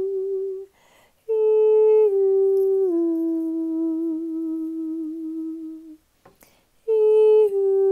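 A woman toning with her bare voice in long hummed notes. Each note is held for several seconds and steps down in pitch, with short pauses for breath between notes: one note ends about a second in, a long one follows, and a new note starts near the end.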